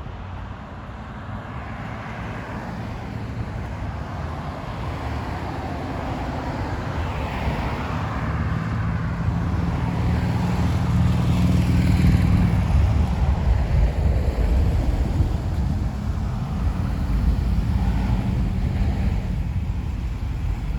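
A motor vehicle's engine drawing closer, growing steadily louder to a peak about halfway through, then staying loud.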